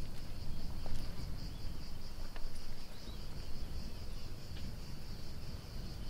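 Insects in a steady high-pitched, finely pulsing chorus, over a low rumble.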